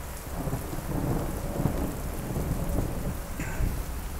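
Heavy rain falling, with an uneven low rumble that swells in shortly after the start and carries on underneath.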